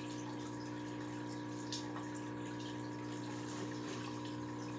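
Aquarium filter running: a steady hum with trickling water. A light knock or two about two seconds in.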